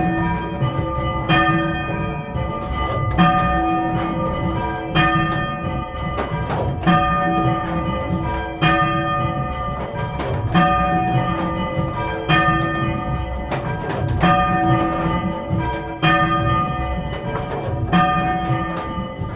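A ring of three church bells, cast by Thomas Mears II of London in 1824, being rung full circle for change ringing. The strikes follow in an even, repeating pattern, with the strongest stroke coming about every two seconds.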